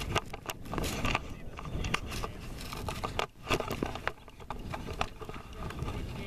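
Irregular clicks and scrapes of movement and handling noise on a head-mounted action camera, with footsteps on a hard tennis court, over a low rumble of wind on the microphone.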